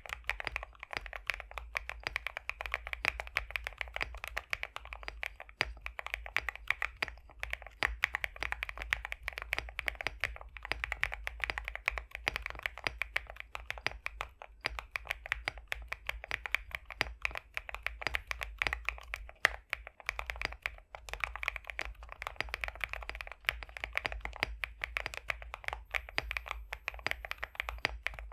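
Continuous fast typing on a custom High65 v2 65% mechanical keyboard with pre-lubed BSUN X linear switches, giving a thocky, creamy clatter of keystrokes with no pauses. A faint, steady low hum runs underneath.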